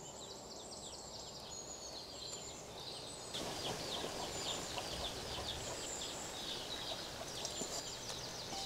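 Minced mutton dropped into hot oil and fried masala, setting off a soft sizzle that grows louder about three seconds in. Birds chirp steadily throughout.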